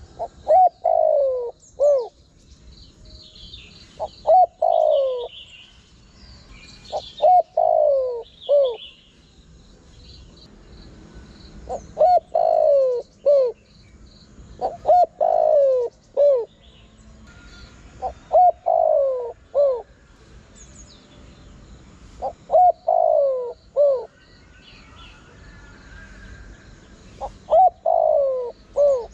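Spotted dove cooing: a loud phrase of a few low notes, ending with a falling coo, repeated about every three to four seconds. Small birds chirp faintly in the background.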